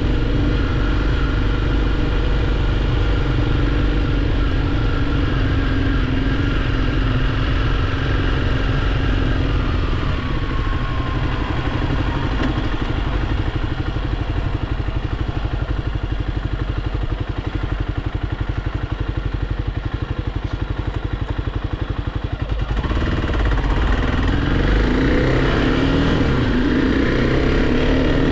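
Kawasaki KLX300's single-cylinder four-stroke engine running while ridden: steady at first, revs falling about ten seconds in to a slower, low pulsing run, then louder again after about twenty-three seconds as it accelerates, its pitch rising in several sweeps.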